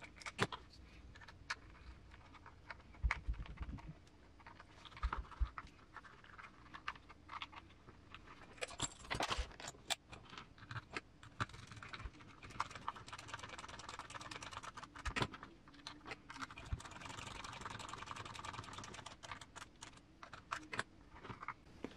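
Light clicks and taps of small plastic and metal parts being handled while a plastic RC crawler transmission case is put together. There are two longer stretches of steady fine rasping, about halfway through and again near the end, as small cap head screws are driven into the case.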